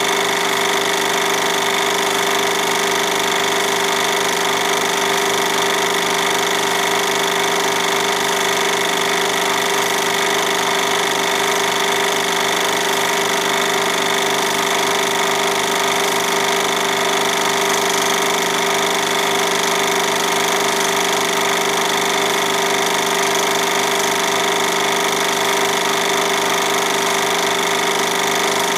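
Film projector running: a steady mechanical whir with a fast, even clatter that does not change.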